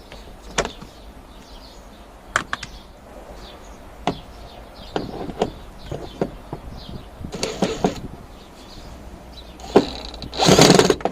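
Hand-tool work inside a car dashboard: scattered clicks and knocks of a wrench and plastic trim as a 10mm bolt is taken out. A louder scraping rustle comes near the end.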